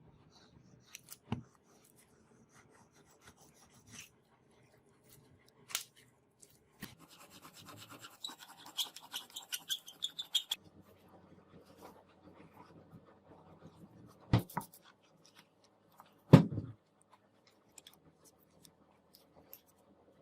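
Hand work on a workpiece: scattered sharp knocks, then a few seconds of quick scraping or rubbing strokes near the middle, and two louder knocks near the end.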